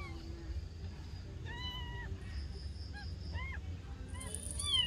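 Newborn kitten mewing repeatedly in short, high cries that rise and fall in pitch, one drawn out a little longer about one and a half seconds in and a quick run of them near the end.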